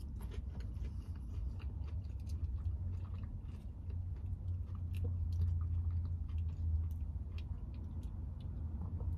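Close chewing of a bite of breaded, fried mozzarella stick, with many small crunchy clicks, over a steady low hum.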